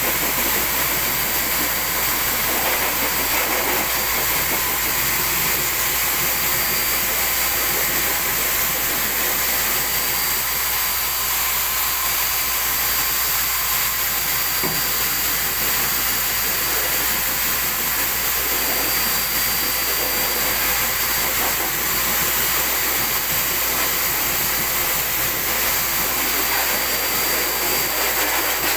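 High-velocity pet dryer blowing air through its hose nozzle onto a dog's coat: a steady whooshing hiss with a thin high whine running through it.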